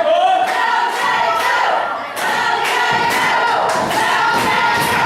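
Wrestling crowd yelling and chanting, many voices at once, with a few thuds.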